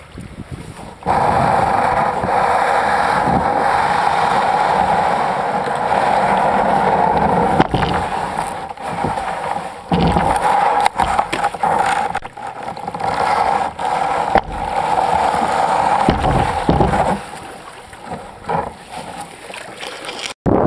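Kayak hull scraping and grinding over rock, a loud rough continuous noise that starts about a second in and eases off well before the end, followed by a few knocks.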